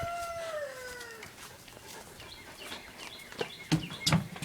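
A rooster crowing; the long last note of the crow sinks in pitch and ends about a second in. A few short knocks follow near the end.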